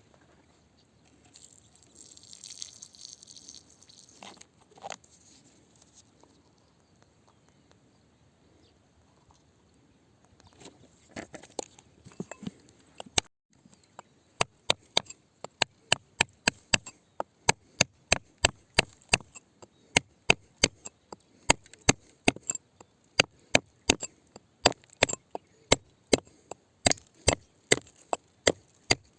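A metal hand tool striking rock over and over, steady sharp blows at about two a second, each with a short metallic ring. Before the blows start, about halfway through, there is faint scraping and a few knocks.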